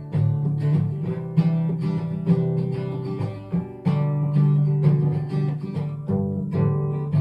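Acoustic guitar strumming chords in the song's instrumental outro, with no singing; the last chord rings out near the end.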